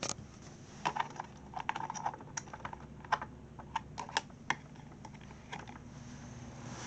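A run of sharp, irregular clicks and taps from hands working the Sunbeam Blizzard desk fan's controls while the fan is still off, over a faint steady hum.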